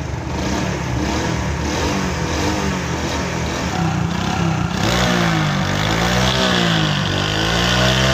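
Small single-cylinder motorcycle engine running, just rebuilt with new piston rings to cure oil smoke from the silencer. From about five seconds in it is revved up and down several times.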